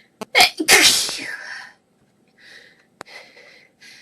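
A person sneezing once during a sneezing fit: a sharp onset just under half a second in, then a long, hissy sneeze that trails off by about two seconds, followed by a few softer breathy noises.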